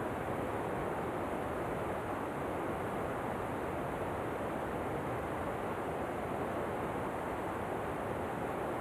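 Steady, unbroken rushing of a waterfall, an even noise with no changes or separate events.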